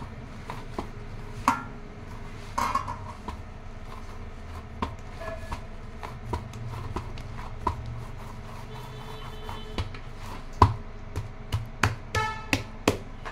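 Wheat-flour dough kneaded by hand in a stainless-steel parat: irregular soft thuds and slaps of the dough pressed against the plate, with sharp clinks where the steel plate is knocked and rings briefly, several in quick succession near the end.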